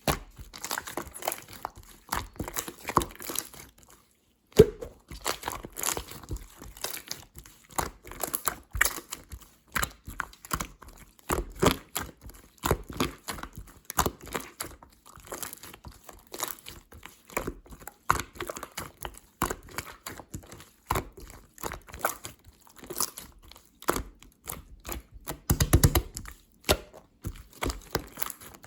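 Clear slime being handled by hand, making a constant run of sharp little clicks and crackles, with a short pause about four seconds in and a louder burst of clicking near the end.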